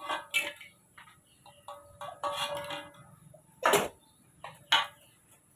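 Clinks and knocks of kitchen utensils and cookware, struck a handful of times with short metallic ringing. The two loudest strikes come in the last couple of seconds.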